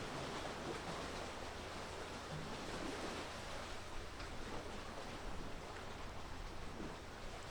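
Steady rush of wind and water by the sea, with a low hum underneath.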